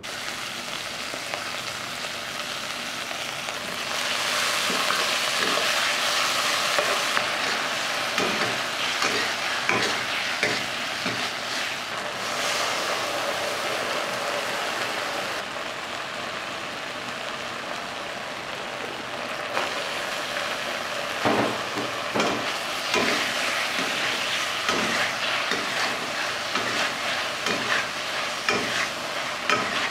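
Food frying hard in oil in a wok, a steady sizzle that swells a few seconds in and again in the second half, with a metal spatula scraping and knocking against the wok as it is stir-fried.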